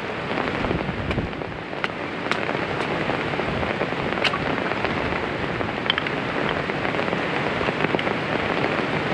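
Steady heavy rain falling, with a few sharp drop ticks scattered through it.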